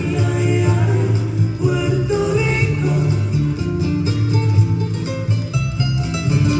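Flamenco-style music led by plucked acoustic guitar, over a bass line and a steady beat.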